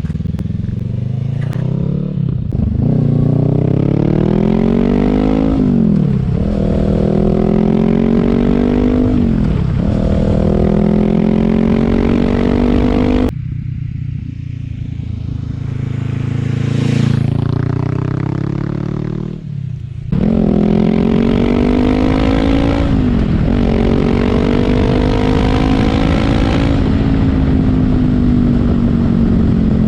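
Honda CB500X parallel-twin motorcycle engine through a Scorpion Serket Taper slip-on exhaust, accelerating up through the gears. The note climbs in pitch and drops back sharply at each gear change, a few times over. There is a quieter, lower-pitched stretch partway through, then it pulls hard through the gears again.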